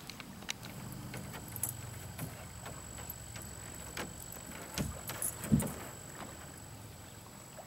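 Scattered light clicks and a few dull knocks, the loudest two close together about five seconds in.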